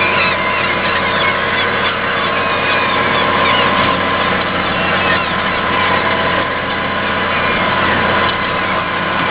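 John Deere 6930 tractor's six-cylinder diesel running steadily under load while ploughing, heard from inside the cab. A steady high whine sits over the engine note.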